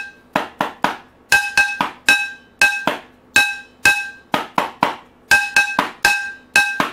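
A wooden stick beating a rhythm on an upturned metal cooking pot and a cardboard oatmeal canister used as a drum, about twenty strikes. The pot strikes ring with a bright metallic tone, and between them come shorter, duller hits.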